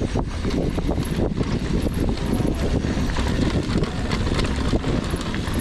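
Downhill mountain bike clattering over a rough trail: a steady low rumble of tyres on dirt with rapid uneven knocks and rattles from the bike.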